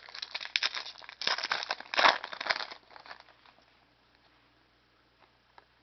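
Trading card pack wrapper crinkling and tearing as the pack is opened. It is loudest about two seconds in and dies away after about three seconds.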